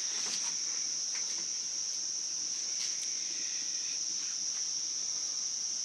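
Crickets trilling steadily at night, one continuous high-pitched note.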